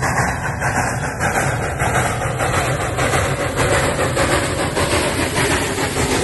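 Western Maryland No. 1309, a 2-6-6-2 compound Mallet steam locomotive, passing at close range: rapid exhaust chuffing with steam hissing from the cylinders, the hiss filling in as it draws nearer.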